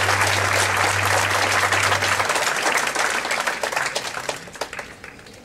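Audience applauding, the clapping thinning and dying away about four to five seconds in. A low steady tone underneath cuts off about two seconds in.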